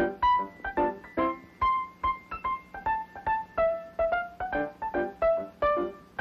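Solo piano music: a lively tune of separately struck notes and chords on a quick, even beat.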